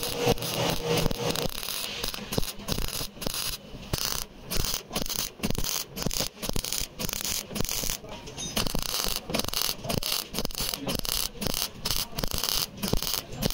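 MIG welder stitch-welding thin car-door sheet steel: a crackling arc in short pulses, about two to three a second, each cut by a brief gap as the trigger is released and pulled again.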